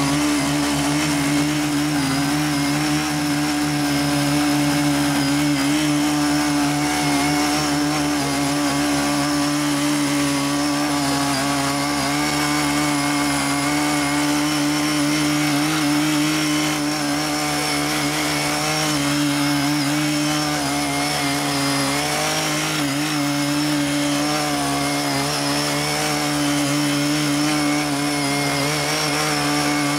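Small engines of CY50 and CY80 foldable mini tillers running steadily under load as their rotary tines churn soil, the engine pitch wavering slightly as they work.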